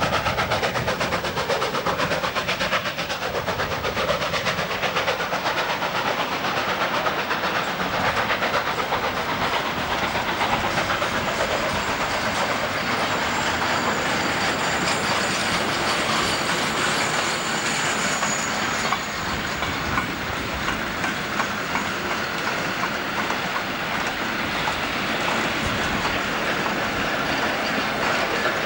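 Freight wagons of a steam-hauled goods train rolling past, their wheels clattering steadily over the rail joints. A brief high squeal rises around the middle.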